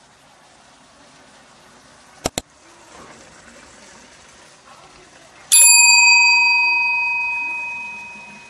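Two quick sharp clicks about two seconds in, then a single loud bell-like ring of struck metal about five and a half seconds in, dying away slowly over about three seconds.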